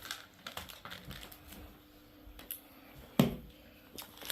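Sweet packaging being handled: scattered light clicks and crinkles, with one sharper click about three seconds in.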